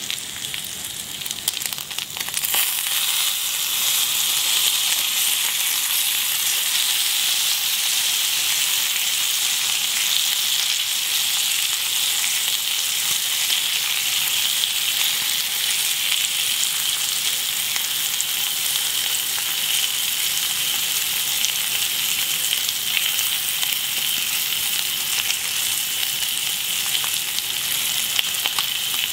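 Bacon rashers sizzling on a hot ridged grill plate: a steady, high hiss of fat frying that grows louder about two and a half seconds in and then holds steady.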